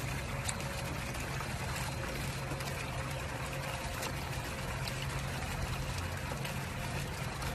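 Water pouring and trickling steadily, with a low steady hum underneath.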